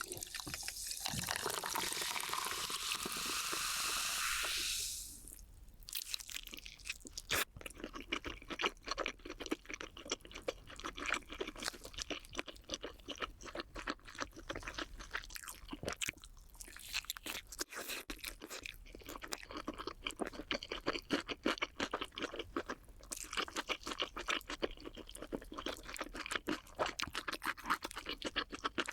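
Crunching and chewing of fried chicken and cheese balls: dense, irregular crisp crackles. For about the first five seconds a steady hiss covers them, then stops.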